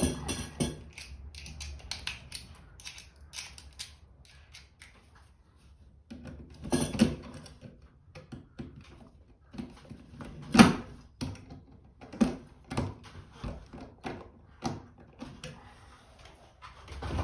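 Scattered small clicks, taps and rustles of wiring and metal hardware being handled at a metal electrical box while a ground wire is connected, with a sharper knock about ten and a half seconds in.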